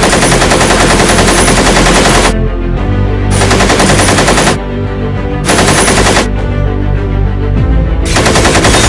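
Bursts of machine-gun fire, added as a sound effect over background music: a long burst of about two seconds, then shorter ones about three and a half, five and a half and eight seconds in.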